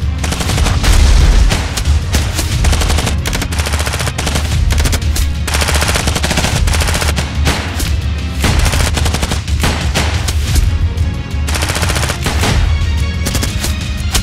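Rapid gunfire, bursts of automatic fire mixed with single shots, going on almost without pause over loud action-score music with a heavy bass.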